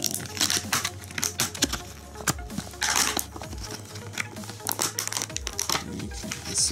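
Clear plastic blister pack being handled and prised open by hand: stiff plastic crinkling and crackling, with scattered sharp clicks and snaps and a longer rustling crinkle about three seconds in.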